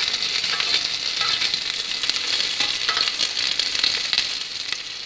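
Chopped ingredients sizzling and crackling steadily in hot mustard oil in an open aluminium pressure cooker.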